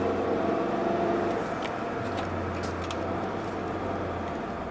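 A Ford Transit Connect's 1.6-litre EcoBoost four-cylinder engine and the van running on the road while it is being driven, a steady low drone. The drone drops away briefly about a second and a half in and comes back, then eases off near the end.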